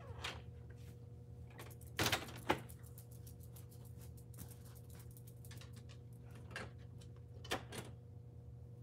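Faint steady low hum with a few short clicks and knocks: a pair about two seconds in and another pair near the end.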